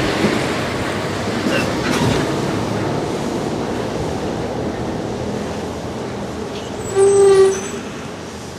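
Farm tractor hauling a silage wagon, engine running with the wagon rattling, fading slightly. About seven seconds in, a short horn beep.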